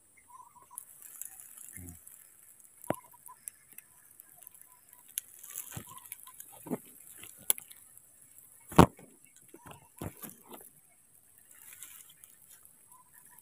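Scattered rustles and knocks in dry leaf litter, with one loud thump about nine seconds in and a few faint short squeaks.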